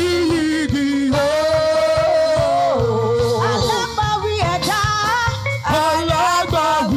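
Church choir singing a praise worship song with instrumental backing and a steady beat.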